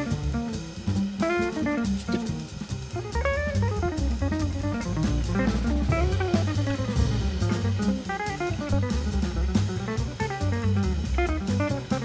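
Instrumental background music with a guitar melody over bass and drums.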